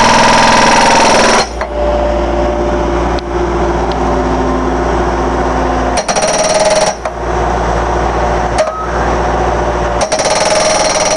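Skid-steer-mounted post pounder hammering a wooden fence post down with rapid repeated blows, in three runs: at the start, briefly about six seconds in, and again from about ten seconds in. Between the runs the tracked skid steer's engine is heard running steadily.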